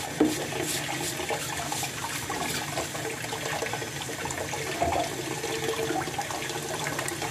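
Water splashing and running in a kitchen sink as live string-tied crabs are washed by hand in a plastic basin of water, with occasional small knocks of shells against the basin.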